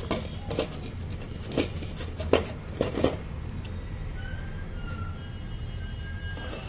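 Potato being rubbed down a stainless-steel box grater, about five short grating strokes in the first three seconds, then quieter.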